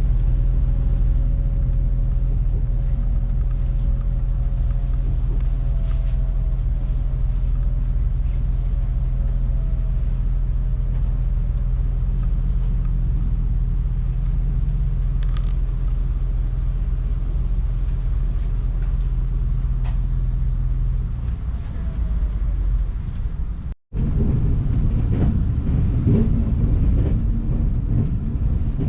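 Passenger train running: a loud, steady low rumble with a faint tone slowly falling in pitch. After a break near the end the rumble turns rougher and more uneven.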